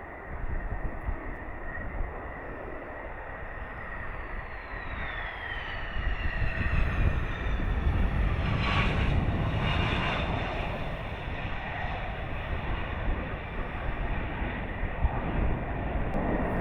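Fighter jet engine noise, with a high whine that falls in pitch over the first few seconds. The jet noise grows louder through the middle and then eases off.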